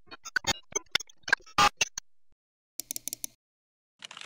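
Digital glitch sound effects for a logo sting: a run of sharp, irregular clicks and stutters, then a short burst of static about three seconds in. After a brief gap the clicking pattern starts again near the end.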